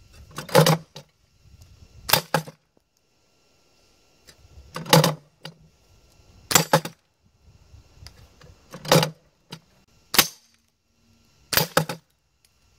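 Gamo Swarm Maxxim break-barrel air rifle fired repeatedly at a steel knock-down field target, with pellets striking the metal. There are about seven sharp cracks a second or two apart, several of them doubled.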